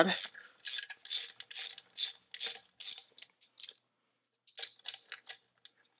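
Ratchet wrench working a bolt loose on the transmission's shift linkage: an even run of sharp ratchet clicks, about two or three a second, then a brief pause and a few fainter clicks near the end.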